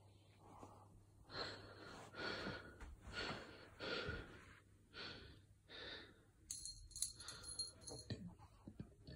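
Faint breathy huffs close to the microphone, about one a second for several seconds. A short patter of clicks follows about seven seconds in.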